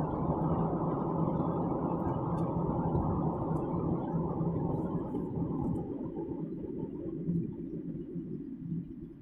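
Low, steady rumble of a car on the move, heard from inside, with a faint hum; it fades away over the last few seconds.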